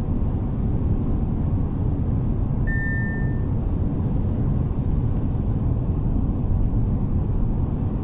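Road and engine noise inside an Audi A5's cabin while cruising on a highway: a steady low rumble. A single short electronic beep sounds about three seconds in.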